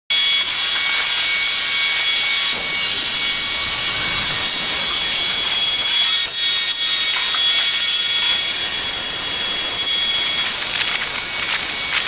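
Hydroforming tee press for 24-inch pipe running: a steady, loud hiss with several high, steady whining tones from its hydraulic system, while the upper die closes on the pipe.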